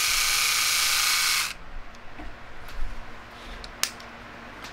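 Small battery motor of a cordless multi-head shaver, running with a rotary blade head fitted: a steady high-pitched whirr that cuts off about a second and a half in, followed by a few light clicks of handling.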